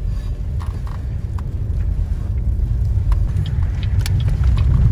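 Car driving up a snow- and ice-covered hill, heard from inside: a low rumble of engine and tyres that grows louder toward the end, with scattered faint clicks.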